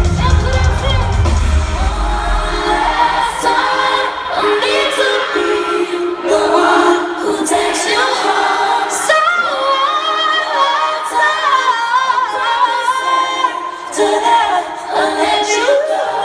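Live pop concert music: a female singer sings held, ornamented notes over a sustained backing. The bass drops out about two seconds in.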